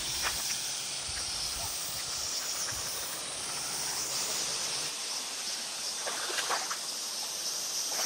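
Steady high-pitched hiss of forest ambience, with some low rumbling bumps in the first three seconds.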